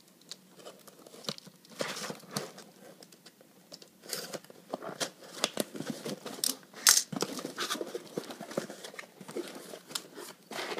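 A cardboard shipping box being opened by hand: packing tape torn and the flaps pulled back, with the cardboard and packing paper crinkling and scraping. The crackles come in irregular bursts and get busier from about four seconds in.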